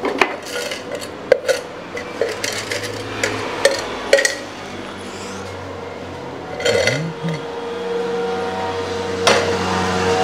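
Repeated clinks and knocks of small metal tools and a tin being handled on a CNC router's work table, busiest in the first few seconds, with another clatter later. A steady low hum runs underneath and grows a little louder near the end.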